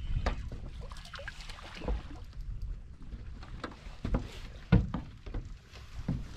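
Scattered light clicks and knocks of an angler handling rod, line and a freshly landed crappie on a fishing boat's deck, with two dull thumps on the boat about five and six seconds in.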